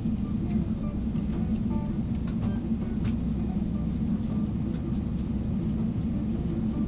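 Steady low rumble inside the cabin of a Boeing 777-300ER taxiing to the gate after landing.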